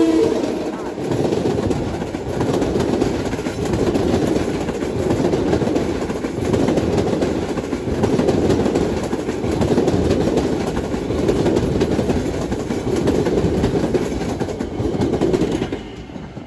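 Long Island Rail Road passenger train passing close by at speed, wheels clattering on the rails. The rumble swells and eases as the cars go by, then falls away suddenly near the end as the last car clears.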